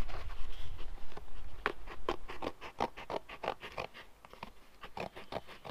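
Small pocket-knife scissors snipping through a paper template: a run of quick, crisp snips, a few a second, with the paper rustling.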